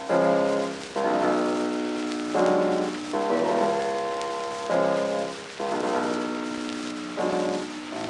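Closing music: keyboard chords struck about every one to one and a half seconds, each ringing and fading, over a steady rain-like hiss.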